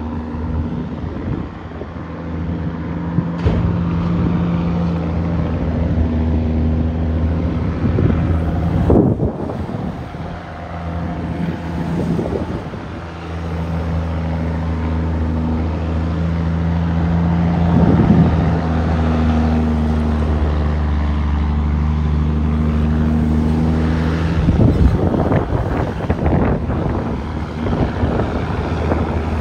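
Heavy diesel truck engine running under load, its note changing step by step several times, about every five seconds, as gears are changed.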